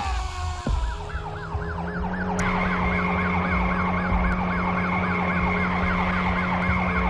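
A siren sound warbling quickly up and down, about four cycles a second, over a steady low drone. A steady higher tone joins it about two and a half seconds in.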